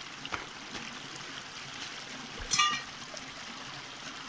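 Shallow mountain stream running steadily over stones, with a faint click just after the start and one brief, sharp, ringing sound about two and a half seconds in.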